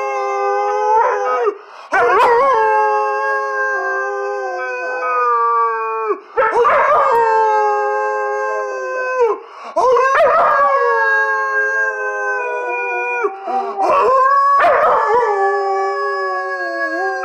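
German shepherd puppy howling: about five long, drawn-out howls of a few seconds each, with short breaks for breath between them; each howl sags slowly in pitch.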